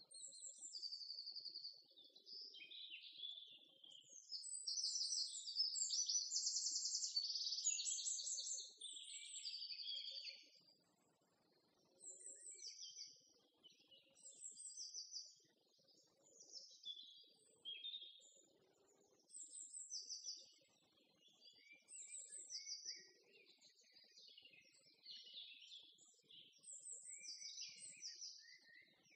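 Songbirds singing and chirping: a steady run of short high chirps and quick repeated trills, one after another with brief gaps.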